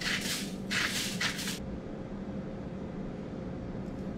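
Salt grinder twisted by hand, crunching in three short bursts over the first second and a half as salt is ground onto a garlic bulb. After that only a low steady hum remains.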